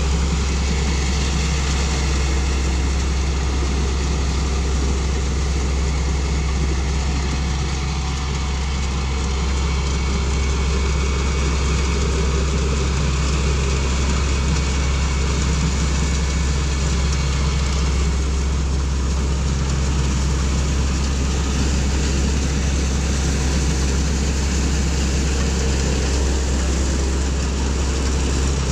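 Kaset Phatthana rice combine harvester running steadily as it harvests, a constant low engine drone with machine noise over it.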